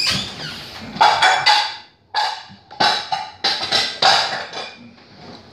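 Dishes and cutlery clattering: a run of sharp clanks and knocks, each ringing briefly, about one every second.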